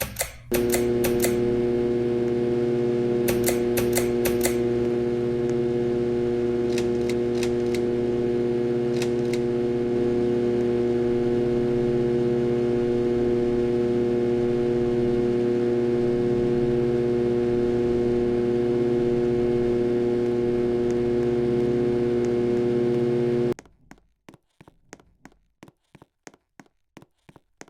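Harbor Breeze Ocracoke ceiling fan motor giving off a loud, steady electrical hum, a sign of the bad motor. A few clicks sound in the first several seconds. The hum cuts off suddenly near the end, leaving a run of faint, rapid clicks.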